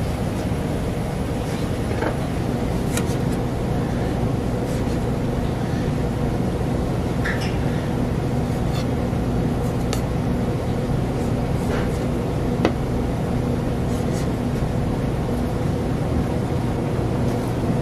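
A steady machine hum of kitchen equipment, with occasional light clicks and taps of utensils and dishes.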